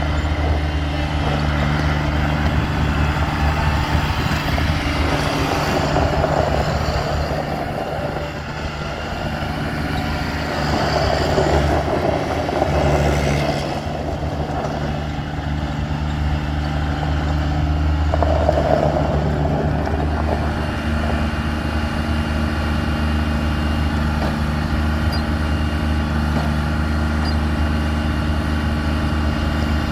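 Kubota ZD326 zero-turn mower's 26 hp three-cylinder Kubota diesel engine running at a steady speed while the mower is driven about.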